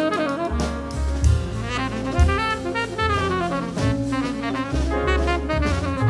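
Background jazz music: a saxophone melody over drum kit and bass.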